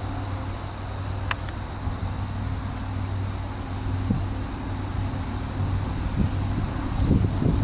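Insects, crickets or katydids, chirping in a fast, even pulse over a steady low rumble, with a sharp click about a second in and a few low bumps near the end.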